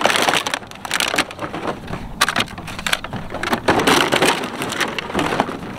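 Empty plastic water bottles and aluminium cans in a plastic kiddie pool crinkling and clattering as a German Shepherd puppy clambers over them, in rapid, irregular crackles.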